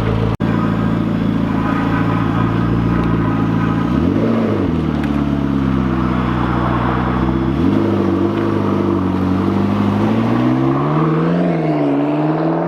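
Audi RS5 engine running at idle, then revved: one quick blip about four seconds in, then the revs climb and fall in slower swells through the second half.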